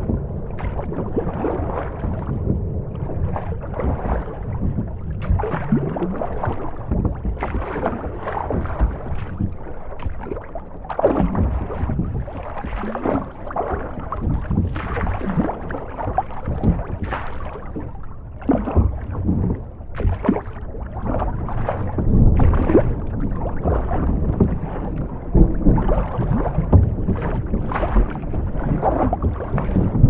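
Rough sea heard from inside a boat's cabin: water sloshing and slapping against the hull in irregular surges over a constant low rumble.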